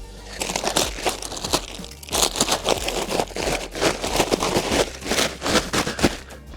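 Plastic wrap and bubble wrap being pulled and torn off a large packaged part: continuous irregular crinkling and crackling, briefly easing about two seconds in, then louder again.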